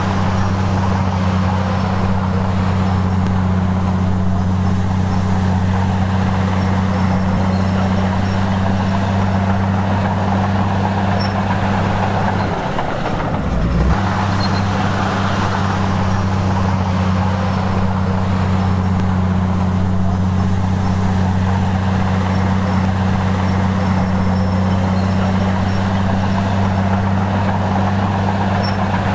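Heavy construction machine's diesel engine running steadily with a low drone, broken briefly about halfway through.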